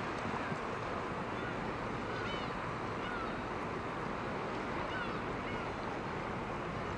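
Steady outdoor wind and harbour ambience, with a bird chirping briefly now and then.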